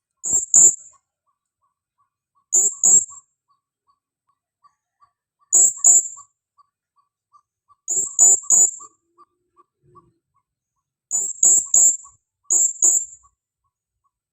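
Female blue-crowned hanging parrot (serindit) calling: sharp, very high-pitched chirps in short groups of two or three, six groups a couple of seconds apart. These are calls for companions, the kind used as a lure call.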